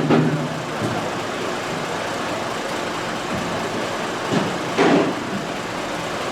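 A motor vehicle running steadily, with a short louder sound at the start and another just before five seconds in.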